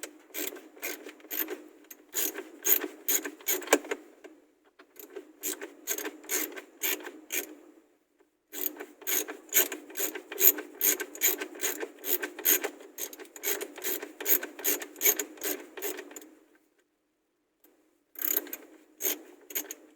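Hand ratchet clicking in runs of quick strokes with short pauses, as Torx screws holding a car's console block are turned out.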